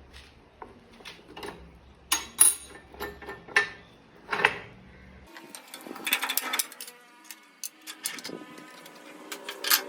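Metal parts and tools clinking and knocking at irregular moments as a cutter is taken off and a groove cutter fitted on a woodworking machine. Past the middle the sound changes suddenly, and a faint steady hum runs under the later clicks.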